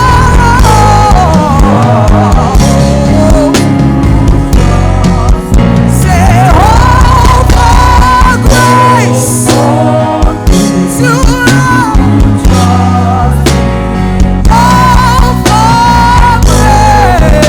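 Live worship band playing an instrumental passage: a bending, sliding melodic lead line over sustained chords, bass and drums.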